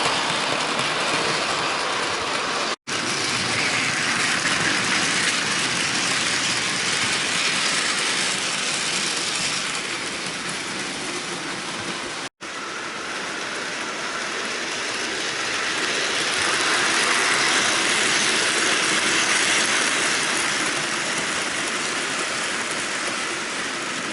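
Model trains running around a layout: the steady whirr of a small electric locomotive motor and the rattle of wheels on the track. The sound cuts out for an instant twice, about 3 s and 12 s in.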